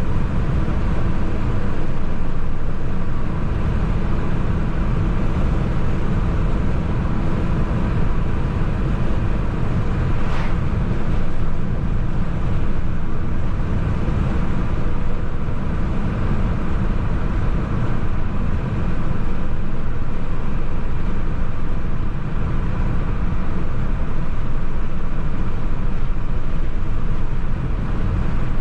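A car cruising at a steady speed, its engine and road noise making a steady low drone with faint engine tones above it.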